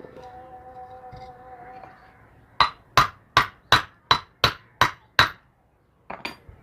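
Hammer striking to drive a washing machine motor bearing into its seat: eight sharp, even blows at about three a second, then two more quick blows near the end.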